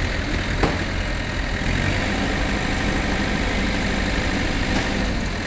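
Heavy diesel engine of a mobile recovery crane running steadily under load as it lifts an overturned lorry.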